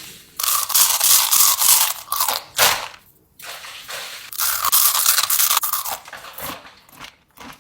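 Close-miked crunching and chewing of crisp food, in several bursts of bites with short pauses between them.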